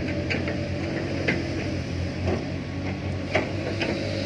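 Diesel engines of heavy earthmoving machinery running steadily, with a few scattered sharp clinks and knocks, the loudest a little over three seconds in.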